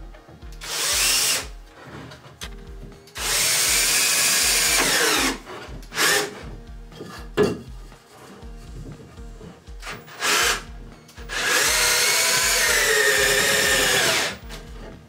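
Cordless drill running in several bursts into wooden boards. The two longest bursts last about two seconds each, and the drill's whine dips and rises in pitch as it works into the wood. A steady low beat from background music runs underneath.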